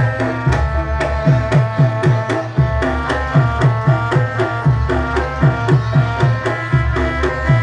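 Javanese gamelan accompaniment for a warok dance: quick hand-drum strokes that drop in pitch, over ringing metallic pitched notes and a low gong-like hum that swells and fades.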